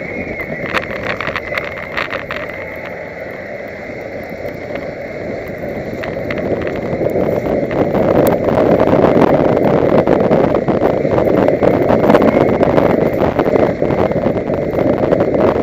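Engine of a wreck-race car running hard as it drives a rough, muddy dirt track, heard from on board with tyre and wind noise and many rattling clicks of gravel and debris hitting the car. It gets louder about seven seconds in and stays loud.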